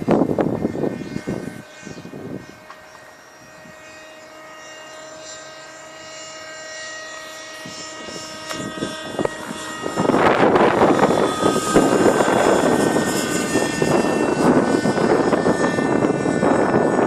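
Thunder Tiger Raptor 30 nitro RC helicopter's two-stroke glow engine running in flight with a steady whine, falling away after the first couple of seconds and then slowly growing louder. About ten seconds in, a loud rushing noise sets in over it.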